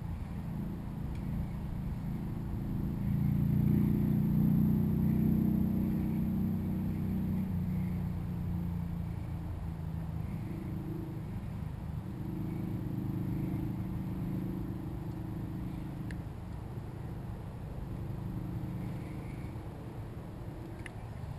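A steady low motor hum that swells louder about three seconds in and eases off again after about eight seconds.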